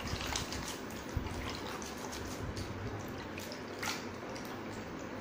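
A cloth being rubbed and squeezed by hand in a steel bowl of water, making irregular small splashes and drips as the stain remover is rinsed out of the fabric.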